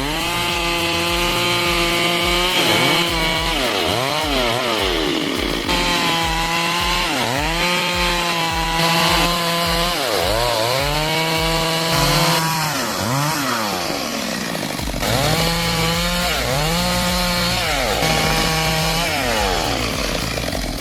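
Gasoline chainsaw cutting through a log. Its engine pitch keeps dipping and climbing back every second or two as the chain bogs in the wood and frees again.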